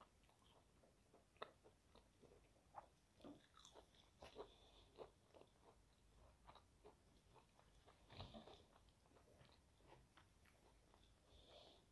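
Faint, close crunching and chewing of crispy fried chicken, with irregular sharp crackles from the batter and the loudest cluster about eight seconds in.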